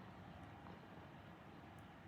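Near silence: a faint steady low rumble of room or background noise, with a few faint ticks.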